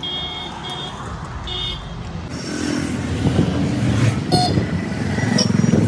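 Street traffic: motorcycle and car engines passing close by, getting louder from about two seconds in.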